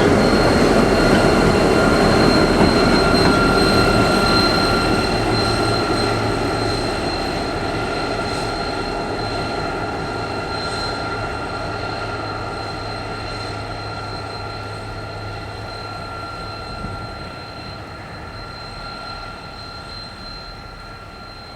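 A train rolling past and moving away, its rumble and a steady high-pitched wheel squeal fading gradually.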